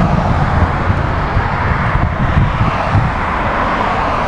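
Wind rumbling on the microphone over steady road noise from passing cars, with a car passing close by near the end.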